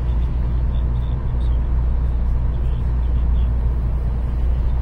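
Shinkansen train running at a steady pace: an even, loud low rumble with a hiss of running noise above it.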